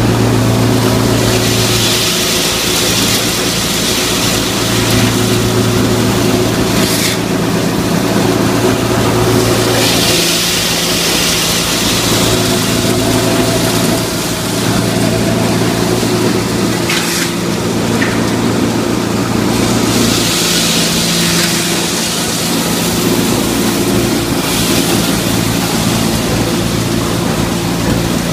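Corn and feed grinder running steadily: a constant machine hum, with a rushing hiss that swells and fades every few seconds. Two brief sharp clicks come about a third and about two thirds of the way through.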